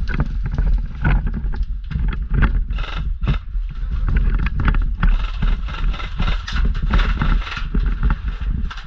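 Rumbling wind and handling noise on a player-worn camera microphone, with irregular knocks and rustling from movement during an airsoft game.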